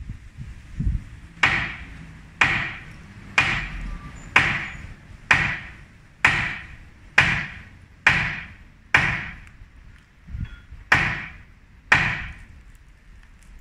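Hand hammer blows striking an old iron-framed balcony being broken up for demolition, about one a second, around a dozen strikes with a short pause near the end, each trailing off briefly. The balcony is cracked right through and crumbling under the blows.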